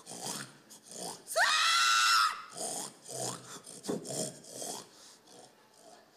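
A woman's hog call into a microphone: a loud, high cry that rises and is held for about a second, followed by a string of short, pig-like calls that die down near the end.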